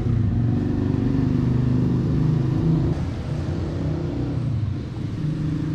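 Motorcycle engine running steadily, its pitch shifting slightly and the level easing off a little about halfway through.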